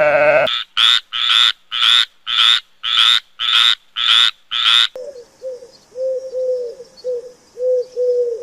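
Animal calls: a run of eight short, high-pitched calls, about two a second, then a series of short, lower calls repeated at an uneven pace.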